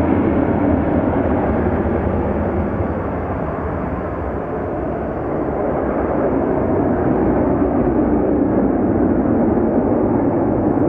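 Boeing 737-200's two Pratt & Whitney JT8D turbofan engines at takeoff thrust as the jet lifts off and climbs away: a loud, steady low rumble that dips slightly about four seconds in and swells again.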